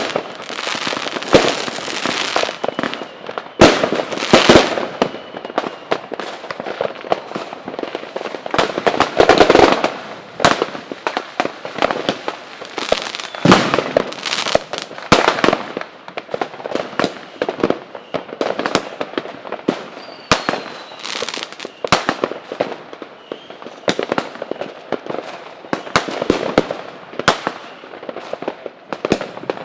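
Fireworks going off: a dense, irregular run of sharp bangs and crackling reports, several coming close together at a time, with louder clusters now and then.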